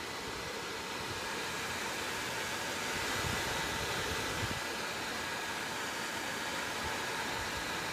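ASUS M11AD desktop computer's cooling fan running loud: a steady airy hiss with a few faint whining tones.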